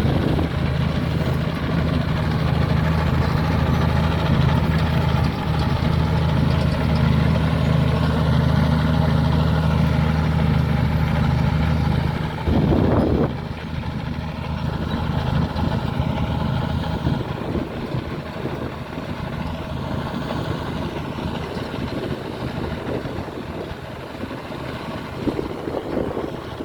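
Komatsu D83E bulldozer's diesel engine running with a steady note for about the first half. After a short loud burst about halfway through, the steady engine tone drops out and a quieter, rougher noise carries on.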